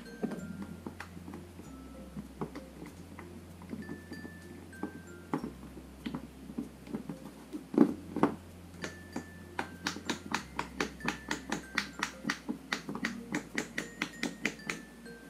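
Silicone pop-it fidget toy bubbles pressed in with the fingertips, giving short soft pops: scattered at first, then a quick run of about four pops a second in the second half, over quiet background music.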